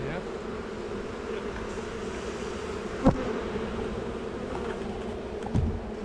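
Honey bees buzzing steadily over an open hive, with a sharp knock about halfway through and a low thump near the end.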